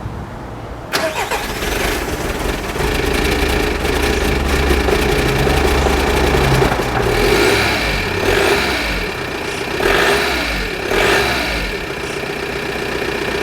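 VW Golf 1.9 TDI diesel engine catching after long cranking and running unevenly, with a few brief surges about two-thirds through before it settles to a steady idle. The hard start comes with spluttering and coughing.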